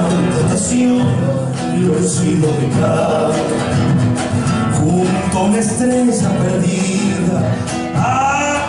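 Folk music playing: guitar-accompanied song with singing.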